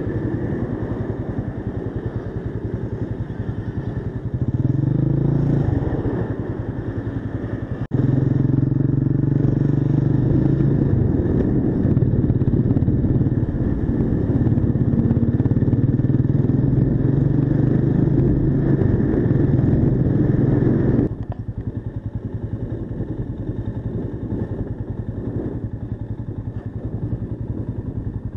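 Mash 400 motorcycle's single-cylinder engine idling, with a brief rev about four seconds in. Near eight seconds it becomes louder and runs steadily under way, then drops abruptly to a quieter, idle-like note about two-thirds of the way through.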